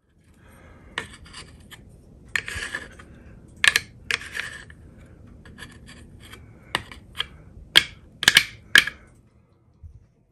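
A fork scraping and clicking against the nonstick plate of a mini waffle maker, prying off a cornbread waffle that has stuck to it. The irregular scrapes come with a handful of sharp clicks, clustered in the second half.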